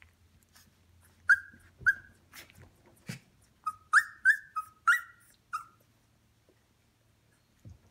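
18-day-old Shikoku puppies whimpering: a run of about eight short, high-pitched squeaky cries in the first six seconds, with faint clicks between them.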